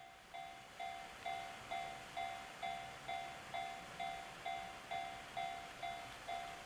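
Japanese railway level-crossing warning bell ringing, an electronic clang struck about twice a second at a steady pace, warning that a train is approaching.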